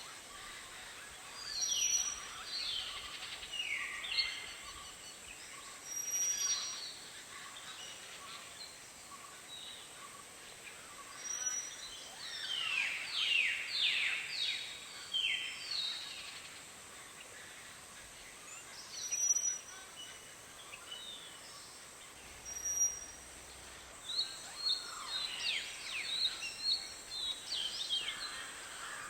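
Several birds calling at a watering hole: bursts of quick, high chirps that slide downward, heaviest about halfway through and near the end, with short high piping notes now and then over a faint steady high hiss.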